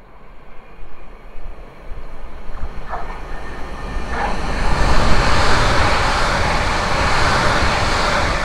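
West Midlands Railway Class 730 electric multiple unit approaching and passing close by: a rush of wheel and rail noise that builds over the first few seconds, then stays loud and steady as the train goes past.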